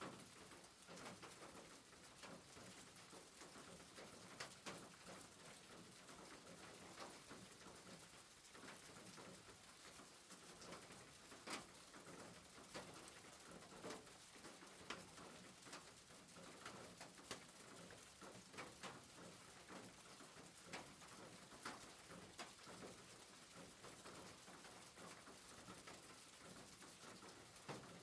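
Rain falling on a roof: a faint steady hiss with irregular individual drops ticking sharply on the surface.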